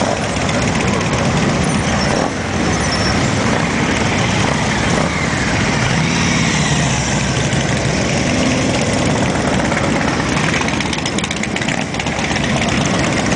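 A line of cruiser motorcycles riding slowly past one after another, their engines running together without a break.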